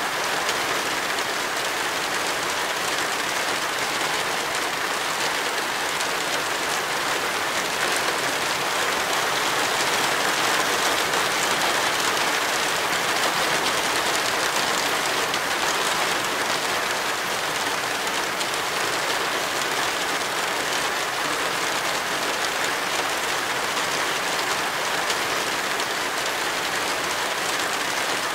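Heavy rain falling steadily, a dense, even hiss of rain with no breaks.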